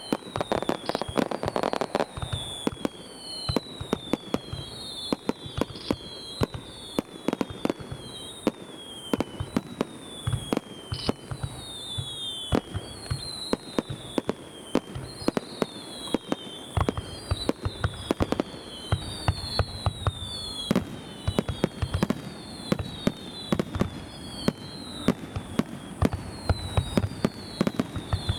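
Fireworks finale: aerial shells bursting in a dense, rapid barrage of bangs, several a second. Over the bangs runs a repeated short falling whistle, about one each second.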